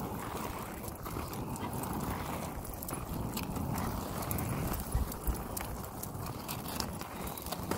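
Footsteps of a person and a large dog walking on pavement, with scattered small clicks and a low rumble from the phone being carried.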